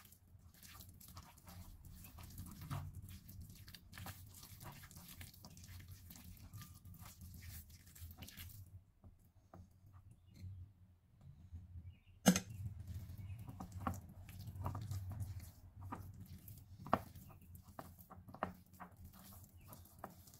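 Hands kneading and squeezing a wet minced beef mixture in a bowl: sticky squelching with small crackles. It pauses for a few seconds near the middle, then one sharp smack, and the squelching goes on.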